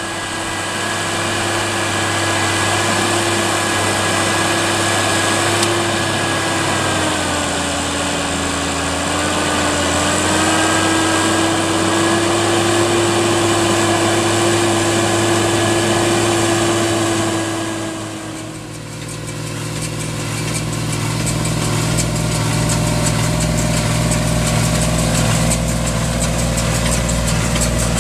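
New Holland tractor's diesel engine pulling a plough, its pitch sagging under load for a few seconds and then recovering. About two-thirds of the way in it gives way to a tractor running a PTO-driven small square baler: a lower, steady engine drone with a fast mechanical rattle.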